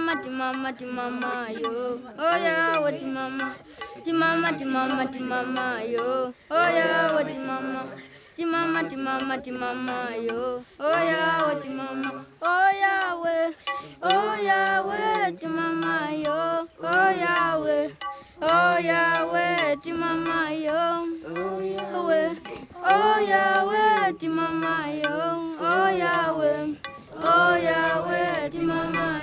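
A song: voices singing a melody in short phrases over light instrumental backing.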